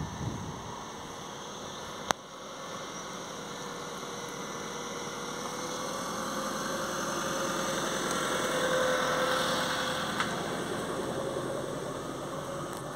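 A distant engine grows louder to a peak past the middle and then fades away again, as a vehicle passes by. A single sharp click comes about two seconds in.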